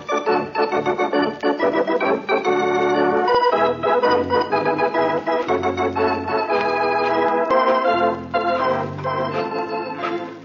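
Organ music playing a busy run of quickly changing notes: a radio-comedy musical bridge marking a scene change.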